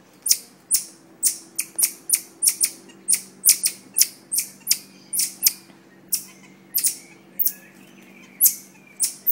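Marmosets calling: short, sharp, high-pitched chirps repeated over and over, about two or three a second, with a faint steady low hum underneath.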